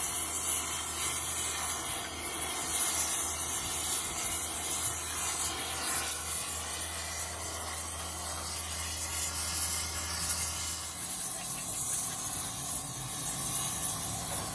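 Oxy-fuel gas torch flame hissing steadily as it heats a cast iron tractor transmission housing, with a low hum underneath that stops about eleven seconds in.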